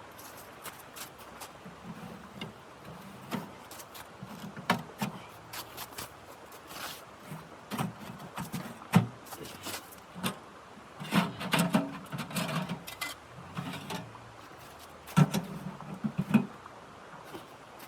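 Irregular knocks, clicks and rustling, like objects being handled, with clusters of dull thumps that are busiest in the second half.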